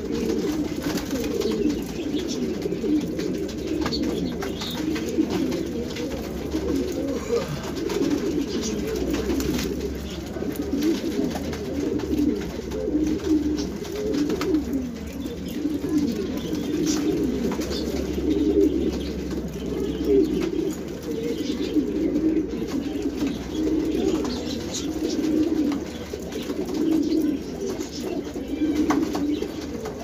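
Many domestic pigeons cooing at once, their low calls overlapping into a steady, unbroken chorus.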